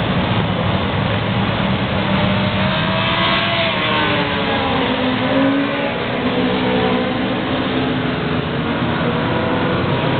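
A pack of motorcycles running through a corner, many engines overlapping at once. Several engine notes rise and fall as individual bikes pass, most clearly in the middle of the stretch.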